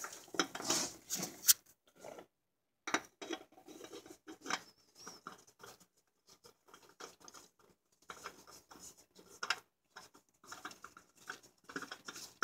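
Faint, irregular small clicks, taps and scrapes of hands handling parts over a plastic oil drain pan, with a brief pause about two seconds in.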